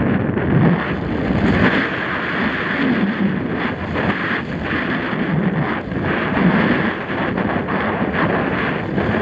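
Wind buffeting a helmet-mounted camera's microphone during a fast mountain-bike descent, mixed with tyres rolling over dirt and frequent short knocks and rattles from the bike over bumps.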